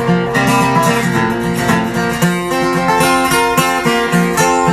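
Acoustic guitar strummed in a steady rhythm as song accompaniment, with no singing.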